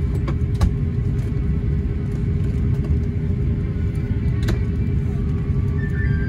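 Steady low rumble of a moving vehicle with a constant hum running through it and a few faint clicks.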